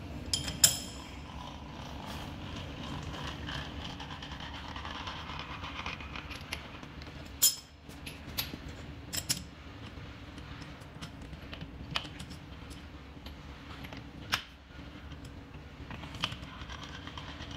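Sharp metal clinks and knocks, spaced a few seconds apart, from a lathe's three-jaw chuck being worked by hand with a chuck key, the loudest about a second in, over a steady workshop hum.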